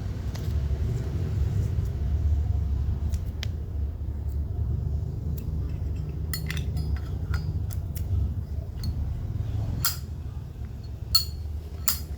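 Metal clicks and clinks from Zippo lighters being handled, scattered through the second half with the sharpest near the end, over a steady low rumble.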